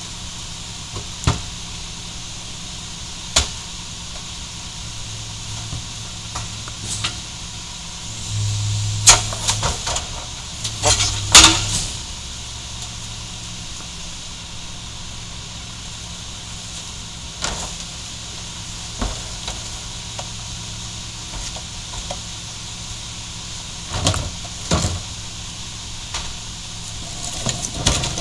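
Mack MR garbage truck's diesel engine idling steadily while trash carts are tipped into the McNeilus rear-loader hopper: a series of sharp bangs and clatters of plastic carts knocking on the hopper edge and trash dropping in, loudest in a cluster about a third of the way in and again near the end.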